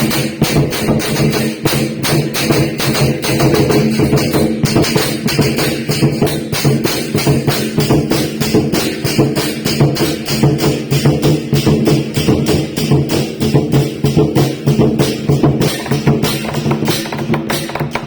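Traditional Taiwanese temple ceremony music: fast, continuous clashing percussion, cymbals and drum, over sustained pitched tones.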